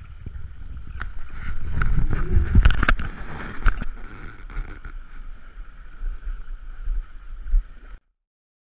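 On a small boat, wind rumbles on the microphone under a steady high hum. Several sharp knocks and thumps come through, the loudest two to three seconds in. The sound cuts off abruptly about eight seconds in.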